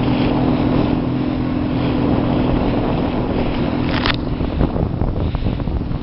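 Motorboat engine running steadily, a low even hum, with wind noise on the microphone. A brief brighter burst about four seconds in, then a few short sharp taps near the end.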